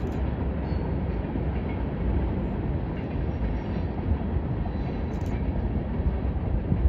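Freight train cars rolling along the rails: a steady low rumble.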